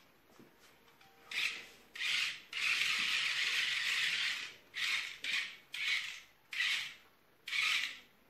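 Small remote-control toy car's electric motor and plastic gears whirring in a series of short bursts, about seven of them and one lasting about two seconds, as it is driven on and off by the remote.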